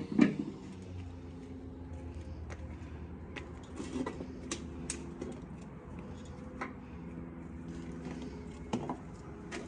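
A heavy black wok is set down on a metal keg wood-fire stove with two loud metal knocks and a brief ring, followed by scattered light clicks and knocks of firewood sticks being handled under the stove. A low steady hum runs underneath.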